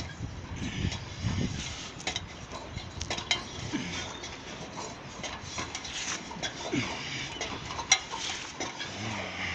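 Irregular knocks and clicks of a ladder being climbed, hands and feet striking and gripping the rungs, with phone handling rustle; the sharpest knock comes about eight seconds in.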